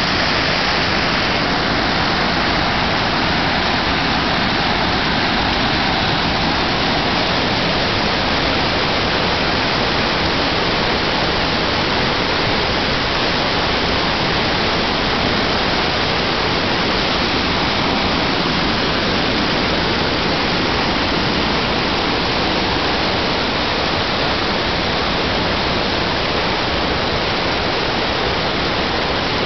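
Mountain waterfall cascading over granite boulders: a steady, even rush of falling water.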